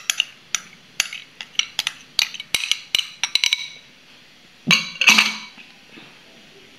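Metal spoon clinking and scraping against glass bowls while ketchup is spooned out: a quick, irregular run of sharp clinks for about three and a half seconds, then two louder clatters around five seconds in.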